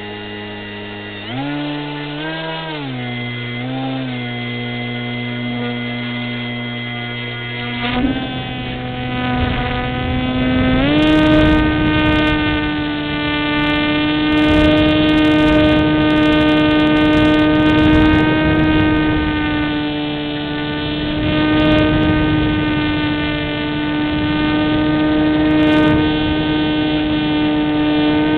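Electric motor and propeller of a Wing Dragon RC model plane, heard from its onboard camera: a whine that blips up and down twice, then climbs in two steps to a steady high throttle, with a rushing hiss underneath.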